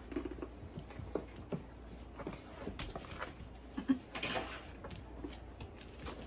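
Eating sounds: chewing of fried plantains with small mouth clicks and smacks, and a paper napkin rustling, most plainly just after four seconds in.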